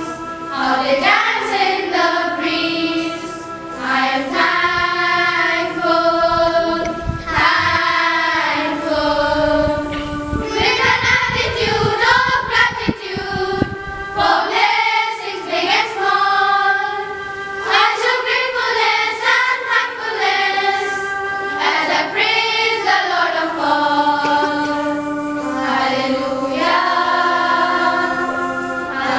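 A class of students singing a thanksgiving song together as a choir, in long held notes that move from one pitch to the next.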